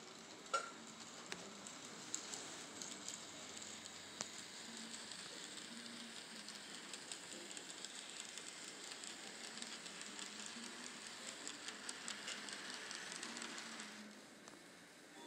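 N scale model train running past on the layout's track: a faint steady hiss of small wheels with many tiny clicks over the rail, dropping off about fourteen seconds in. One sharp click about half a second in.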